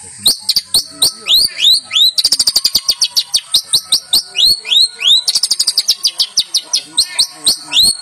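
Long-tailed shrike (cendet) singing a fast, varied song of sharp high notes that sweep down in pitch. Two rapid trills come in, about two seconds in and again past the middle.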